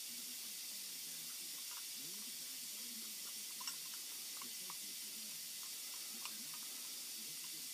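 Steady faint hiss with a few light, scattered metallic clicks as a small steel lock nut is spun by hand onto a threaded rod.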